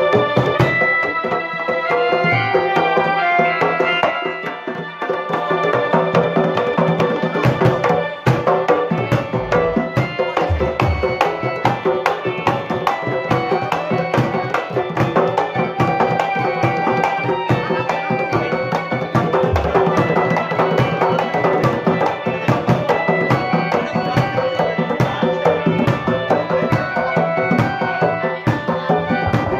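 East Javanese bantengan percussion ensemble playing live: hand drums beaten in a fast, busy rhythm under a melody of held, stepping pitched notes.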